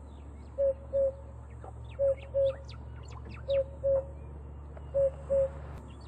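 African cuckoo calling its two-note "coo-coo", four pairs of hoots at the same pitch, about a second and a half apart. Smaller birds chirp faintly in the background.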